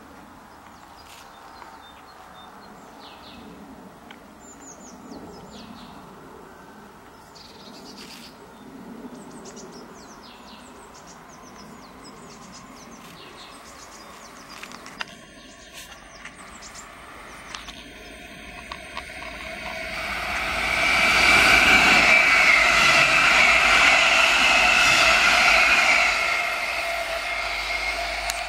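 Munich S-Bahn class 423 electric multiple unit passing close by. Its rolling noise and a steady whine build up about two-thirds of the way in, hold for several seconds, then drop off. Small birds chirp before it arrives.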